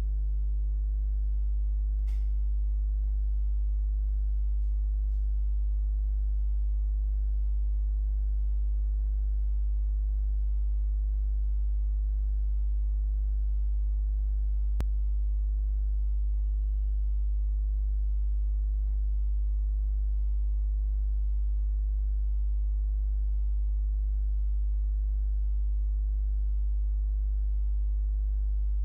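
Steady low electrical hum with a stack of overtones, mains hum picked up by the recording microphone. A faint click sounds about two seconds in and another about halfway through.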